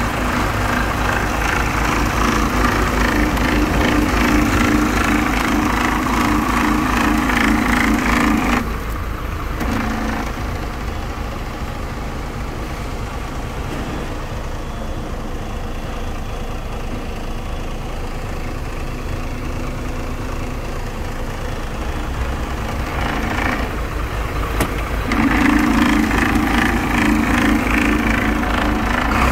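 Iveco Eurostar 440E43 truck's diesel engine idling steadily. It is louder and fuller for the first eight seconds or so and again near the end, and quieter and muffled in between, as heard from inside the cab.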